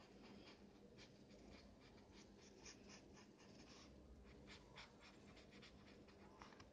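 Faint scratchy strokes of a colouring pen scribbling back and forth on notebook paper, several strokes a second.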